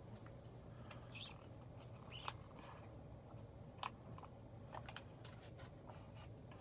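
Lasko ceiling fan running on low speed: a faint, steady low motor hum, with scattered light clicks and ticks, two of them a little louder about two and four seconds in.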